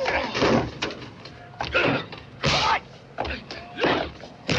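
Film fistfight sound effects: a rapid run of about six loud, sharp punch and slam hits, mixed with short grunts.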